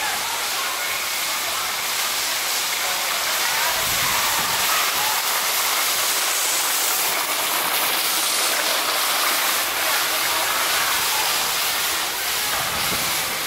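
Steady rushing hiss, even and unbroken, with no clear tone or rhythm.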